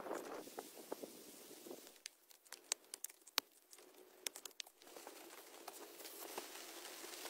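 Faint, scattered raindrops pattering, with a run of sharp individual drips in the middle. A soft steady rain hiss builds again near the end.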